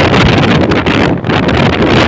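Loud wind buffeting the microphone of a moving motorcycle, a dense, fluctuating rush with road and engine noise mixed in underneath.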